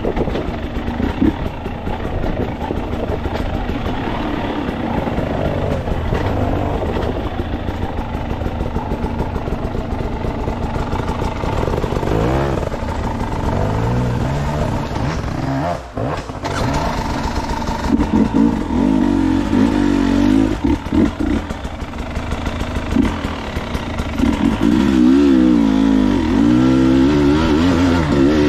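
Dirt bike engine heard from the rider's helmet camera, revving up and down over and over as the bike is ridden along a rough bush trail. The throttle is briefly shut about halfway through, and the engine is worked harder near the end.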